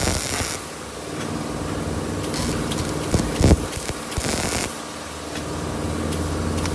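Stick welding on the steel tube of a motorcycle silencer: short bursts of crackling arc, about three in all, over a steady hum, with a few sharp ticks in between.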